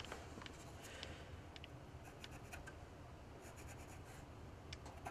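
Faint pencil scratching on a carved wooden fishing-lure body as the lead positions are marked out: light, irregular strokes and ticks, a little busier about three and a half seconds in.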